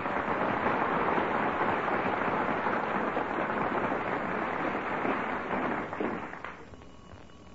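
Studio audience applauding, steady at first, then dying away about six seconds in.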